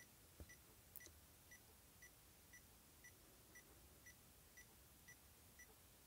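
Socket & See DIT 400 insulation tester beeping faintly and evenly, about two short high beeps a second, while its test button is held down for a 500 V insulation test.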